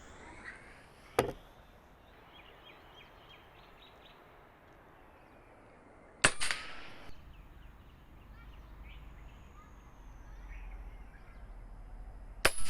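Air gun firing three times, each a sharp, short crack, about five and six seconds apart.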